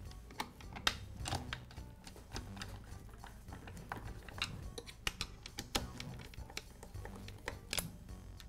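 Light, irregular clicks and taps of hand tools and small parts handled on a power saw's housing during reassembly, over a faint steady background.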